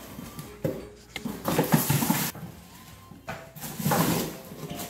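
Cardboard box scraping and crumpling as a husky and a malamute bite and paw at it, in two bouts, about a second and a half in and again about four seconds in.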